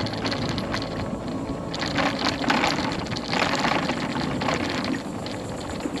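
Pride Mobility Pursuit 2 mobility scooter riding along a trail: a steady motor hum under irregular rattling surges from the wheels and frame on the path.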